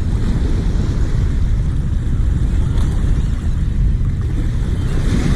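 Wind buffeting the microphone: a steady low rumble that flutters with the gusts.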